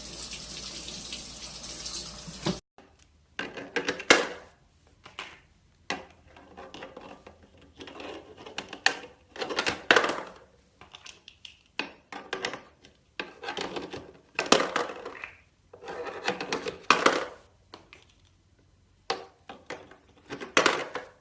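Water running steadily from a tap, stopping abruptly after about two and a half seconds, then a string of short separate splashes, the loudest about four, ten, fifteen and seventeen seconds in.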